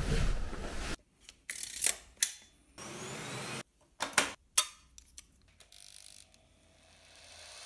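Close-miked handling sounds: a run of sharp plastic clicks and knocks from a vacuum cleaner's body, with a short steady stretch in the middle. Near the end a power drill starts to spin up, its whine rising.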